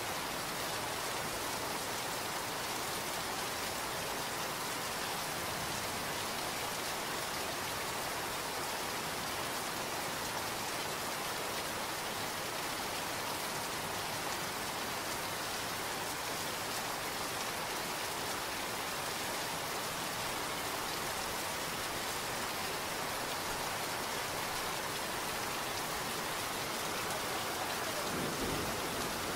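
Steady rain: an even hiss of many drops falling without a break. A low rumble comes in near the end.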